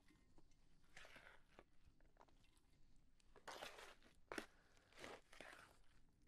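Faint, scattered crunching and rustling of sticky cooked rice mixed with sugar being handled in a plastic beaker, a handful of short scrapes against near silence.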